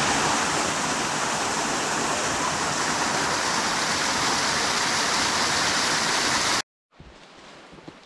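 Water pouring over a small creek waterfall: a loud, steady rushing noise that cuts off abruptly about six and a half seconds in, leaving much quieter outdoor background.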